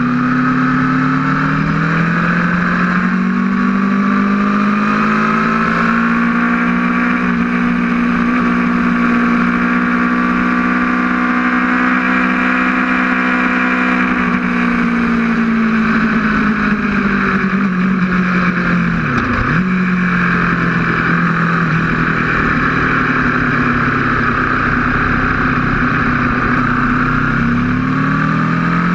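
Aprilia RSV4's V4 engine running at speed, with a steady rush of wind. The engine note climbs over the first few seconds, holds high, then sinks, dips sharply for a moment about two-thirds of the way through, and climbs again near the end.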